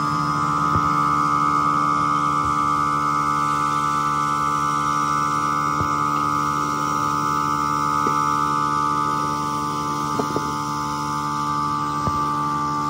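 Workshop machinery running steadily with a constant hum and a high-pitched whine, with a few faint clicks scattered through.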